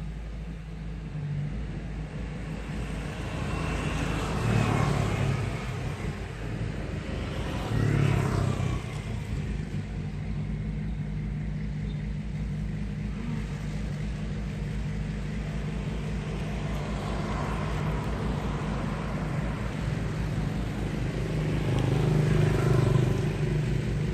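Bulldozer's diesel engine running steadily at work, a low pulsing rumble that swells louder three times: about four seconds in, around eight seconds, and near the end.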